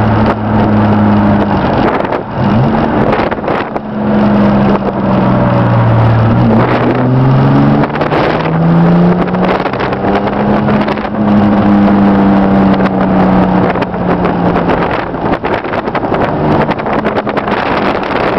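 Chevrolet S-10 pickup's 2.8-litre V6, heard from inside the cab while driving. The engine note climbs, drops and climbs again several times, as with a manual gearbox being worked through the gears, then holds steady for a few seconds. Road and wind noise run underneath.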